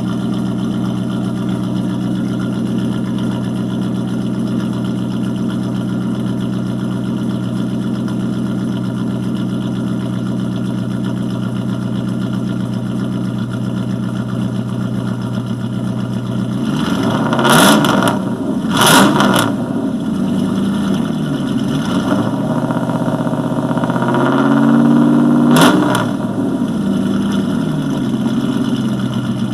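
A 1994 Dodge Ram 1500's 5.2-litre V8 idling steadily through straight pipes, with no cat and no mufflers. A little past halfway it is revved twice in quick blips. Later it is held at a slightly raised speed, then blipped once more before it drops back to idle.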